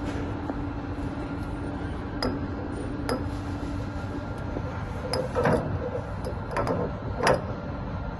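Metal parts clinking and knocking, about five short sharp clicks spread over several seconds, over a steady machine hum that fades out about halfway through.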